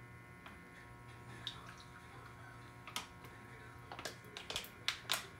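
Juice being emptied from a plastic juice pouch into plastic popsicle molds: faint handling, with a few light clicks that come thicker near the end, over a steady low hum.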